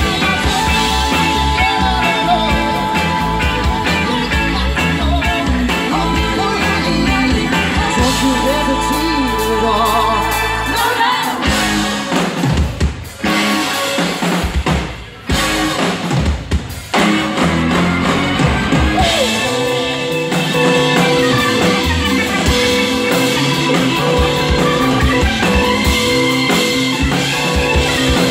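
Live rock band playing, with drum kit, bass guitar, keyboards and electric guitar under a sung lead vocal. About midway the music breaks into a stop-start passage of short gaps, then the full band comes back in.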